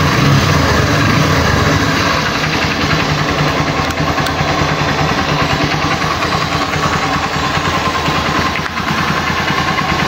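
Honda TMX Supremo's single-cylinder engine idling steadily, a little louder for the first two seconds. It is running after a new wiring harness cured its hard starting; it now starts on one press of the starter.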